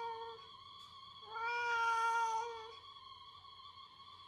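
Orange-and-white domestic cat meowing for its food: the tail of one long meow, then a single drawn-out meow of about a second and a half at a fairly steady pitch in the middle.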